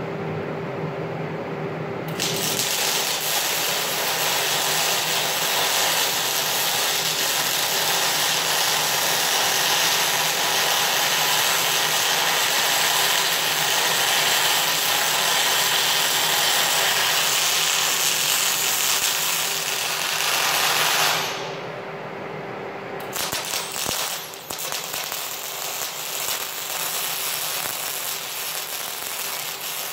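MIG welding arc crackling steadily as a bead is run along a steel I-beam. The arc strikes about two seconds in, stops for a couple of seconds past the two-thirds mark, then strikes again and runs on a little quieter. Before the first strike only a steady hum is heard.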